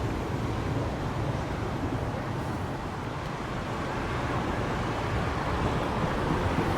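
Train running along the track, a steady low rumble that eases a little midway and builds again near the end.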